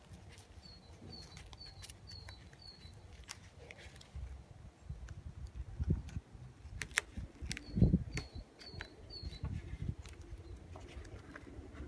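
Hands handling duct tape and rubber bands on a wooden table: rustles, clicks and low thumps, the loudest thump nearly eight seconds in. A bird in the background gives a run of short high chirps, about two a second, five near the start and four more around eight seconds in.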